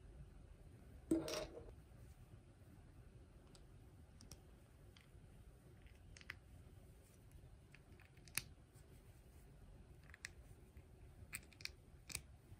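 Plastic LEGO bricks being handled and pressed together by cotton-gloved hands, with a few short sharp clicks as pieces snap on, more of them near the end. About a second in there is one louder clatter.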